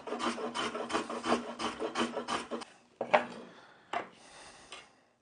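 Hand tool rubbing and scraping on wood in quick back-and-forth strokes, as in rasping or hand-sanding, with two separate heavier strokes after a couple of seconds, then trailing off.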